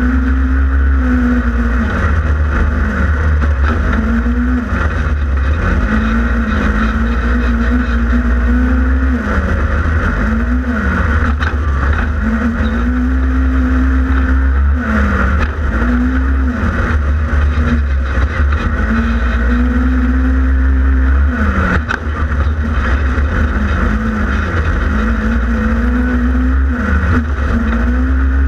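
Polaris RZR 1000 XP side-by-side's parallel-twin engine being raced, revving up, holding and easing off again and again, every two to four seconds. A steady low rumble runs beneath it.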